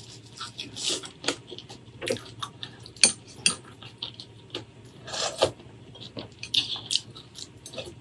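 Metal spoon clinking and scraping in a glass bowl of mustard greens, with a couple of sharp clinks about three seconds in.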